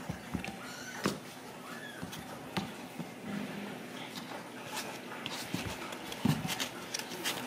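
A four-week-old Ragdoll kitten moving about on a tile floor: scattered light taps and scuffs, with one faint short mew about one and a half seconds in.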